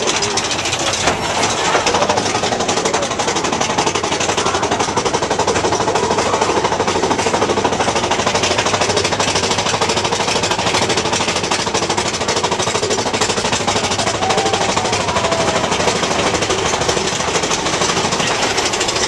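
Big Thunder Mountain Railroad mine-train roller coaster rolling along its track, heard from on board: a rapid, steady mechanical clatter that holds unchanged throughout.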